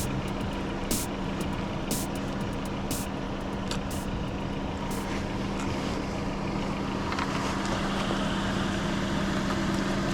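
A steady low engine hum, as of a vehicle idling. Sharp clicks come about once a second during the first half and then stop.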